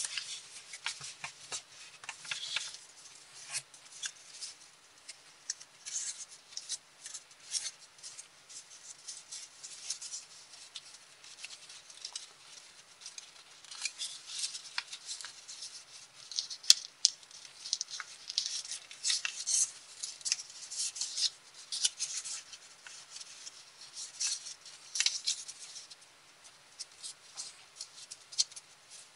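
Sheet of colored copy paper rustling and crackling in the hands as it is folded and creased, in many short, irregular bursts, with one sharp click about halfway through.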